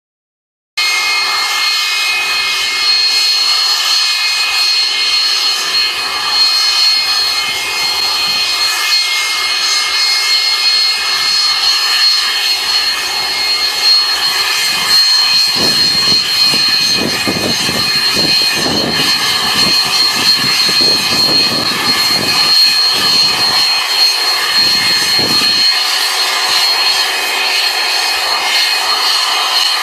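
Jet-engine snow blower on a subway work train running steadily with a high, even whine as it blasts snow off the tracks. Uneven low rumbling comes and goes through the middle stretch.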